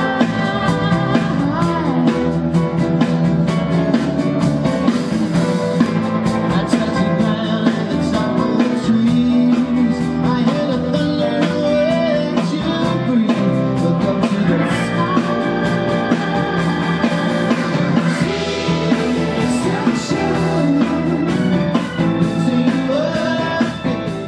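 Live acoustic performance: a man singing over a strummed acoustic guitar, with a steady strumming rhythm throughout.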